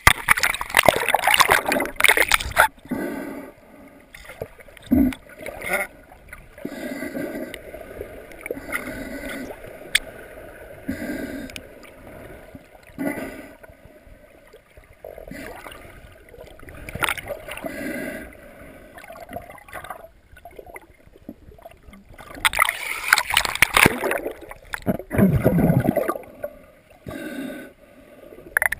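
Water heard through a camera's underwater housing while snorkeling: loud splashing and sloshing as the camera goes under near the start, then muffled gurgling and swishing that come and go every second or two, with another loud stretch of splashing about three-quarters of the way through.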